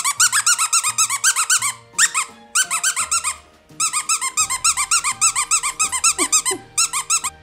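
Squeaky dog toy squeezed rapidly, about eight high squeaks a second, in several long runs with short breaks. Soft background music plays underneath.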